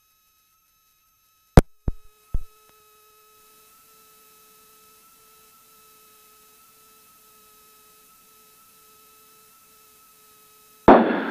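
Light aircraft's avionics heard through the headset audio feed as they are powered up: a few sharp electrical clicks near the start, then a faint steady electronic whine with a lower tone that keeps breaking on and off. A short loud burst of radio static comes near the end.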